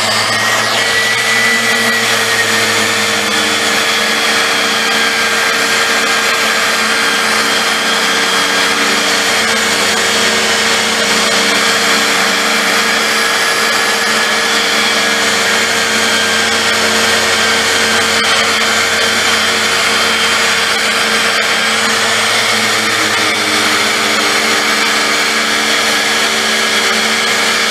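DeWalt random orbital sander running steadily with a high whine, its pad working over the galvanized sheet-metal top of a trunk to sand through a brown stain.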